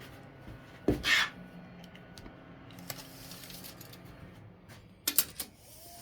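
A metal tape measure being picked up and handled: a knock about a second in with a short rasp, then a few sharp metallic clicks near the end as the tape is worked.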